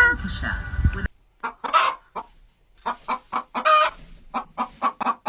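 Chicken clucking: a run of short clucks, two or three a second, with a few longer drawn-out calls among them, starting after a sudden cut about a second in.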